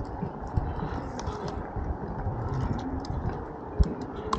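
Wind buffeting the microphone and road rumble from a moving electric scooter, with one sharp knock near the end.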